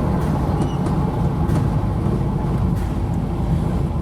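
1984 Ford F-150 pickup driving at a steady pace: engine running and road rumble, heard from inside the cab.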